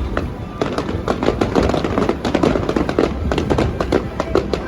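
Fireworks going off, a rapid run of bangs and crackles several times a second over a low rumble.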